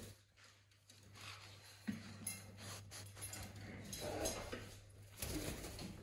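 Raccoon shuffling about on a fleece blanket and pillow: soft rustling and scratching, with a light knock about two seconds in.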